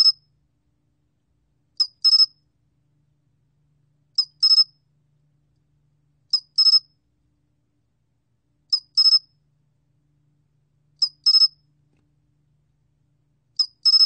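Sol-gwitturami cricket (솔귀뚜라미) singing at 21 °C. It gives short high chirps in groups of three, one chirp then a quick pair, with a group about every two and a half seconds and silence in between.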